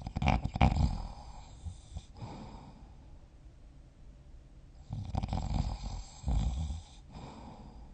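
A person snoring while asleep in bed: one loud snore right at the start that trails off over about two seconds, then another about five seconds in that comes in two parts.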